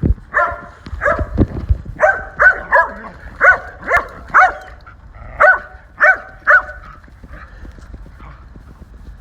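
A dog barking in short repeated barks, about eleven in loose quick runs, which stop about seven seconds in.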